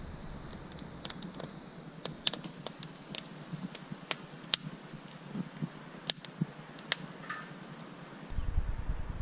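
Split firewood burning in a metal fire-pit bowl, crackling with irregular sharp pops and snaps over a soft steady rush of flame. A low rumble comes in near the end.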